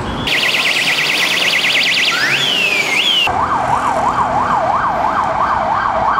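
Electronic emergency-vehicle siren. It starts as a fast, high yelp, breaks into a couple of rising wails, and about three seconds in switches abruptly to a slower, lower warble of about two or three sweeps a second.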